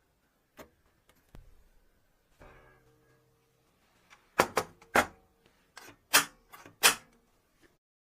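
A mini table football game being handled, with a few light clicks, a short ringing knock, then a run of about seven sharp hard clacks in the second half.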